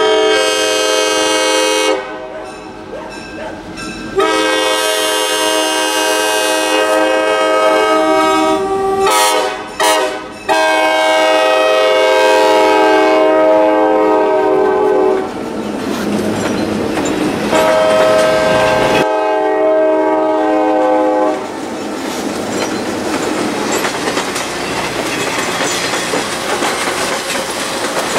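Diesel locomotive's multi-chime air horn sounding a series of blasts: a long one, a longer one, two quick short toots, then two more long blasts. In the last several seconds the horn stops and the passing cars' wheels clatter over the rail joints.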